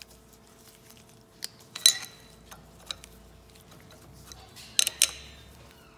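An adjustable wrench is clinking on the steel five-sided key of a Tramac hydraulic hammer's accumulator as the key is turned closed, sealing the nitrogen charge in. It makes a few sharp metal clicks, the loudest about two seconds in and two close together near the end.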